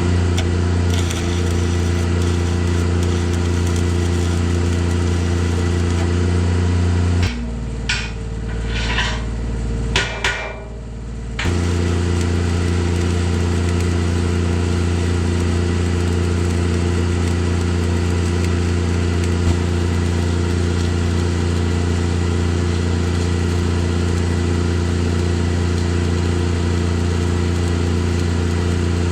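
Welding arc crackling on a steel loader bucket over the steady hum of a running welding machine. The hum drops out for about four seconds in the middle, with a few sharp crackles, then returns and starts to wind down near the end.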